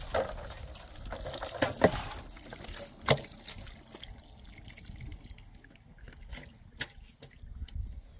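Running water trickling over tomatoes and peppers in a metal pan as they are rinsed, with two sharp clinks of the pan. The water stops about four seconds in, leaving a few light knocks as the pan is handled.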